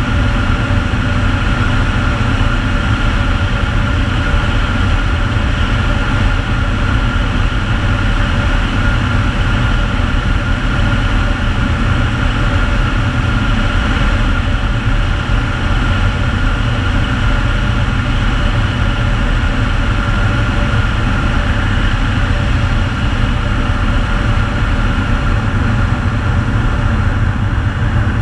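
Air Tractor 502XP crop duster's Pratt & Whitney PT6A turboprop engine and propeller running steadily at flying power, heard inside the cockpit as a loud, even drone with rushing air and a steady high turbine whine.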